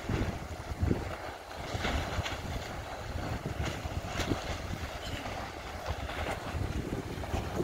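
Strong gusty wind buffeting the microphone with a low rumble, over choppy bay water lapping and splashing; the level rises and falls with the gusts.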